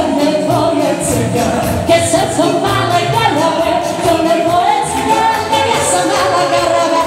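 Live wedding-band music: a woman sings lead through a microphone over a steady beat.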